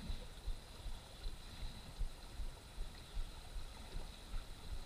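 Kayak and paddle knocking in dull, irregular low thumps, muffled by a sealed waterproof camera housing, with a faint steady high whine underneath.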